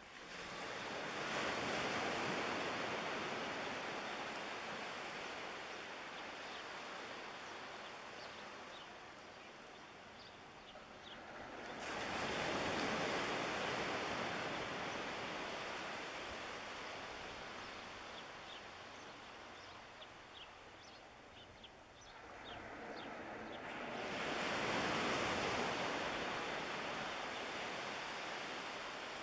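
Small waves breaking and washing up a beach: three surges of surf about eleven seconds apart, each rising quickly and fading slowly as the water runs back.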